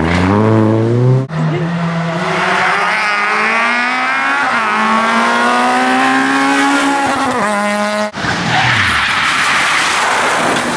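Small rally hatchbacks at full throttle on a tarmac stage, in three short takes. The main one holds high revs with the engine note climbing, changes gear about four seconds in, then lifts off sharply near the end. It is followed by another car passing with heavy tyre and road noise and a falling engine note.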